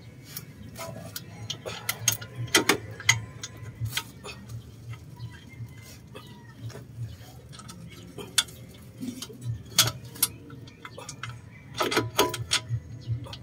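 Irregular metal clicks and clinks of tools and parts being handled at a car's front wheel hub and steering knuckle, with louder clusters of knocks about three seconds in and near the end.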